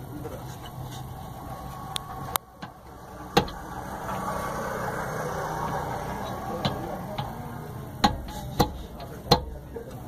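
About eight sharp metallic clicks and knocks, spaced irregularly, as a car's rear brake caliper and its parts are handled and fitted, over a steady low hum.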